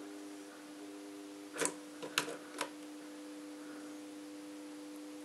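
Steady electrical hum from an energized contactor, its coil pulled in and holding the contacts closed. Three sharp clicks come about halfway through as multimeter probe tips are pressed against the contactor's terminals.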